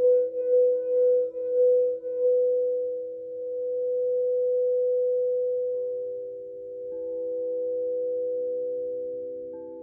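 Quartz crystal singing bowls ringing in long sustained tones, led by a bowl at 528 Hz. For the first two seconds the tone pulses about twice a second. It then settles into a smooth tone that swells and fades slowly, while bowls at lower and higher pitches join in one after another in the second half.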